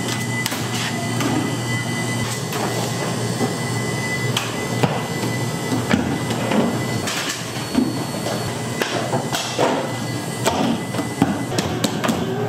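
Bakery kitchen work sounds: irregular knocks, taps and clatter over a steady machine hum.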